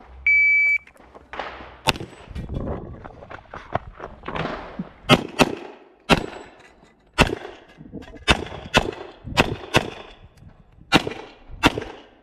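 Shot timer gives a single start beep, then a .40 S&W HPS/STI 2011 pistol fires about ten shots, several as quick pairs, with pauses between groups: an IPSC stage run.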